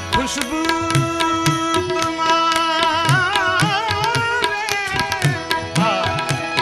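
Ghazal performance: a male singer holds a long wordless note and then sings wavering, ornamented runs, over harmonium and a steady tabla rhythm.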